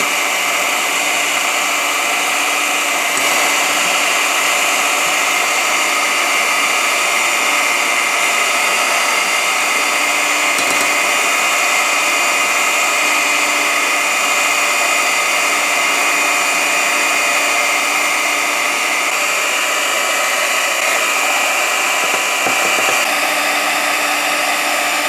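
Electric hand mixer running steadily, its beaters whisking beaten eggs as warm milk is added, a constant motor whine with no change in speed.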